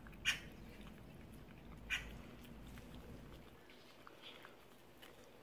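Cat licking a lickable treat from a squeeze tube, making faint, small wet licking clicks. Two short, sharper sounds stand out, one just after the start and one about two seconds in.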